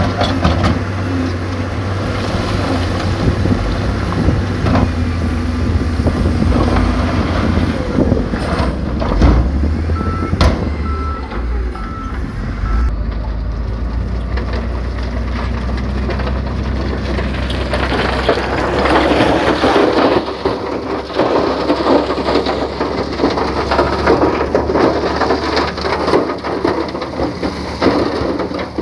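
Heavy diesel dump trucks and wheel loaders running with a steady low drone, and a reversing alarm beeping about five times around ten seconds in. From about eighteen seconds a loud, coarse crackling noise takes over.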